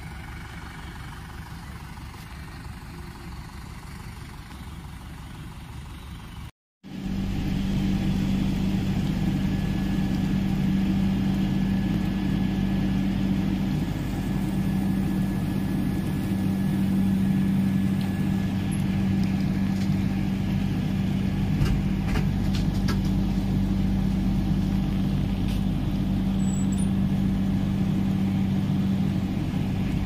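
A low engine rumble for the first six seconds. After a short break comes the louder sound of a moving train heard from on board: a steady running rumble with a constant hum, and a few sharp clicks in the second half.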